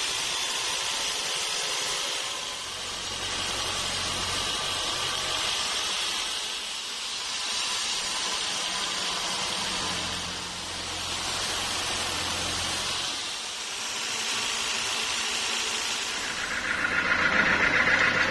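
Band sawmill running, its blade cutting lengthwise through a large log: a steady hiss of sawing over the low hum of the mill's motor, swelling and dipping every few seconds. Near the end the sound gets louder and harsher.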